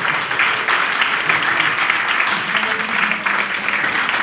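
Audience applauding: a room full of people clapping steadily.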